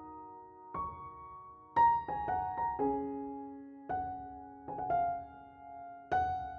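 Background music: slow piano or electric piano playing single notes and chords, each struck and left to ring out, a new one every half second to a second.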